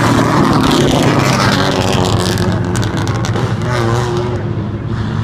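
Engines of a group of stock-class race cars running as they pass close by on an asphalt oval, loud at first and slowly fading as they move away.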